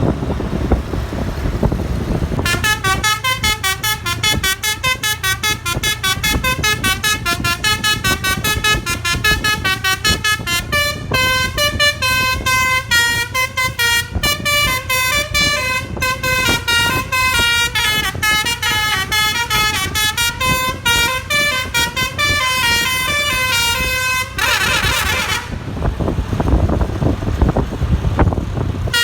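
A bus's telolet (basuri) musical horn on roof-mounted trumpets playing a fast tune of short notes, several sounding at once. It starts a couple of seconds in, runs for about twenty seconds, ends in a brief warbling trill, and then only the engine and traffic rumble remain.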